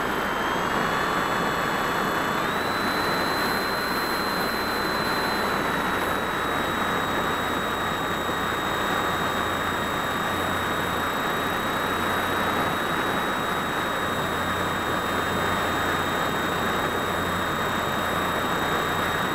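Phoenix 1600 RC glider's electric motor and propeller under power, a steady high whine that steps up in pitch about two and a half seconds in and then holds, over a heavy rush of wind across the onboard camera's microphone.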